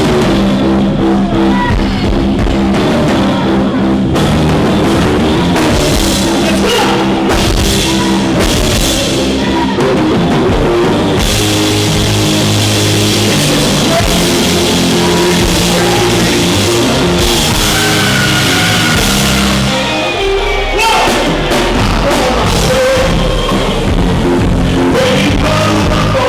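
Live band playing a loud, driving song with drum kit and bass, heard through a distorted recording from a microphone overloaded by the club's sound system.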